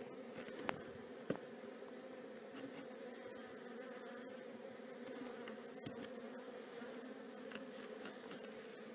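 Honey bees buzzing around the hive in a steady hum, with two short sharp ticks about a second in.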